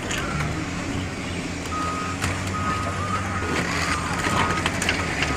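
Wheel loader's diesel engine running low and steady. From about two seconds in, its reversing alarm sounds in long steady tones as it backs up, with a few scattered knocks.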